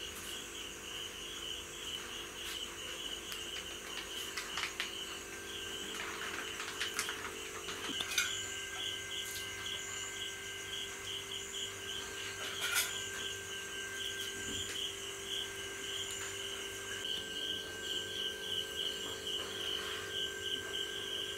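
Insect chirping in a rapid, steady pulsing trill, over a steady low hum.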